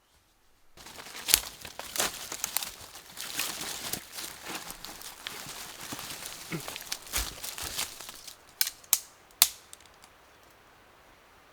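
Rustling and crackling of dry material being handled, full of small sharp clicks. Three separate sharp snaps follow near the end.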